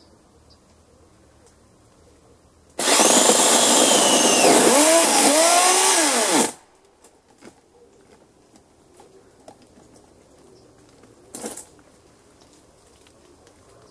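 Electric chainsaw running in one burst of about four seconds, its pitch sweeping up and down, then stopping suddenly.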